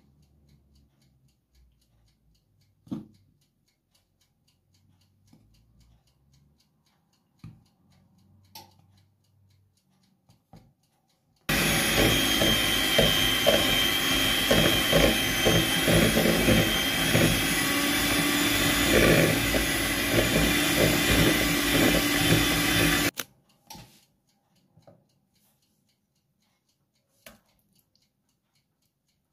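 Electric hand mixer running for about eleven seconds, starting and stopping abruptly, its beaters creaming a block of butter in a bowl. Before and after it, a few faint clicks and taps.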